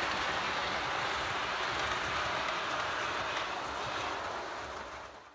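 OO gauge model trains running on the layout track: a steady rolling hiss of wheels on rail and motor, fading out at the end.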